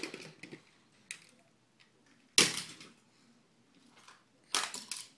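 Small toy cars clattering against one another and against a plastic bin as a baby picks them up and drops them: a few separate clacks, the loudest about halfway through and another near the end.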